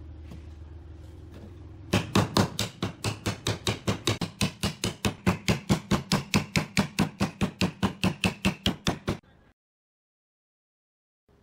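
A steady low hum, then from about two seconds in a fast, even run of sharp knocks, about five a second, that cuts off abruptly near the end.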